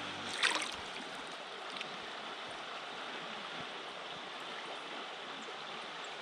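Steady rushing of river water, with a short, loud burst of noise about half a second in. Background music cuts off just after the start.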